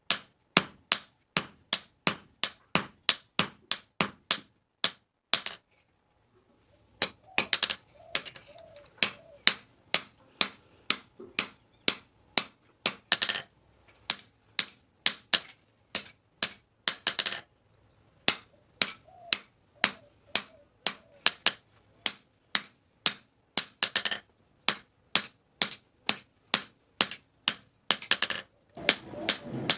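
Hand hammer striking a steel cleaver blade on a steel block anvil, each blow a sharp metallic clink with a high ring. The strikes come quickly, about three a second, then stop for a second or so about five seconds in. After that they resume at a slower, uneven pace, with a few heavier blows that ring longer.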